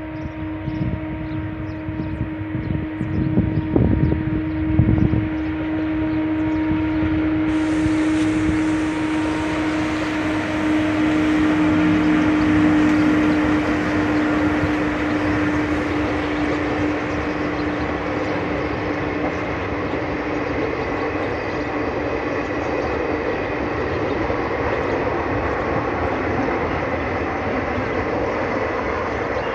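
Electric passenger train passing at speed: a steady droning tone is loudest as the locomotive goes by, about twelve seconds in. From then on the coaches' wheels rumble and clatter along the rails. A few low thumps come about four seconds in.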